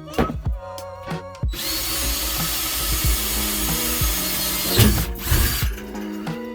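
A power drill runs steadily for about four seconds, starting about a second and a half in, with a sharp louder moment near the end before it stops. Background music plays throughout.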